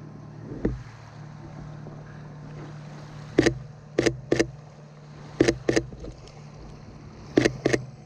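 Sony A7 III's shutter firing in quick bursts: three clicks about three and a half seconds in, two about two seconds later, and three more near the end. Under them runs the steady low drone of a distant boat engine.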